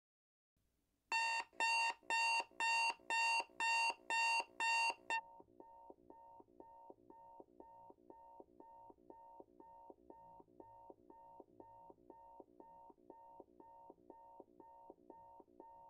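Electronic alarm clock beeping in even pulses, loud for about four seconds, then much quieter while the beeping keeps going steadily.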